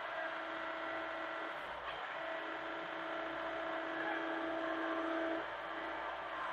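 Hitachi mini excavator running steadily, its engine and hydraulics giving a constant whine. The whine breaks briefly about two seconds in and drops away near the end.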